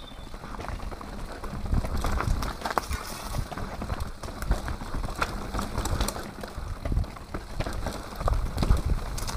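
Mountain bike riding down a rocky dirt trail, heard from on the bike: tyres rolling over dirt and stones, with frequent knocks and rattles of the frame, chain and suspension over the bumps.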